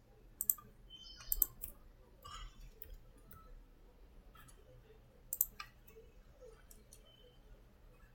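Computer mouse clicking: a handful of sharp clicks scattered over several seconds, some in quick pairs, over faint room noise.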